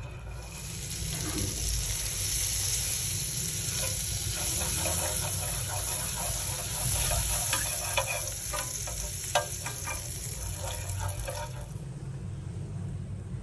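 Hot fat sizzling in a nonstick frying pan while a metal spoon scrapes and taps across the pan, spreading it. The sizzle dies down near the end as pancake batter is poured in. A steady low hum runs underneath.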